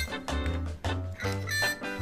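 Upbeat instrumental background music with a bouncing bass line.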